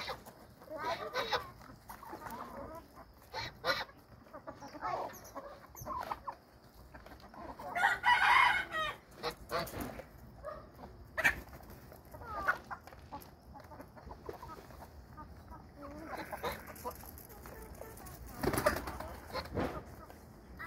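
A flock of chickens clucking and calling while they feed on scattered grain, in short scattered calls, with a rooster crowing once, louder and about a second long, around eight seconds in.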